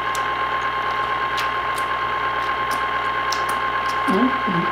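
Electric fountain machine pumping thick cheese sauce, its motor running with a steady whirr and a constant whine. It is loud enough that talk has to carry over it.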